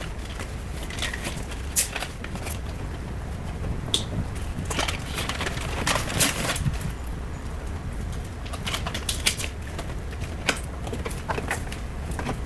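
Handling noise from work on a car: scattered sharp clicks, taps and short rustles, loudest about 2 s and 6 s in, over a steady low hum.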